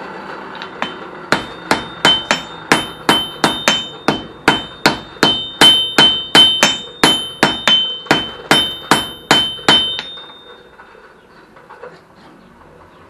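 Hand hammer striking white-hot mild steel on an anvil, a quick run of about three blows a second for roughly eight seconds, each blow leaving a short metallic ring. This is a forge weld: a bundle of mild-steel rod offcuts being hammered together into a solid block at welding heat.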